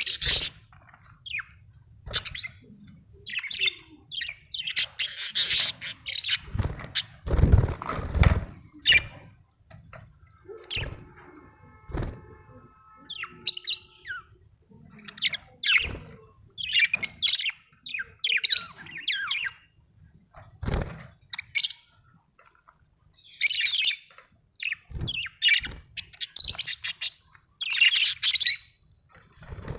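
Budgerigars chirping and chattering in short, rapid high-pitched bursts, with pauses between calls. A few dull low thumps come through, loudest about seven or eight seconds in.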